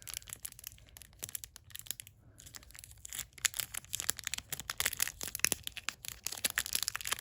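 Packaging crinkling and tearing as it is worked open by hand. The crackles grow denser and louder about halfway through.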